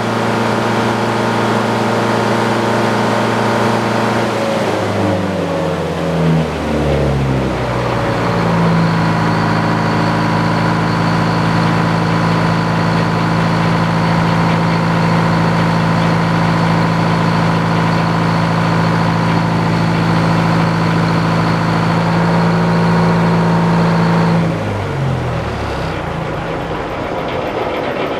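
Portable sawmill's engine running steadily. It drops in pitch about four to seven seconds in, then holds a steady note with a high whine over it until it changes again near the end.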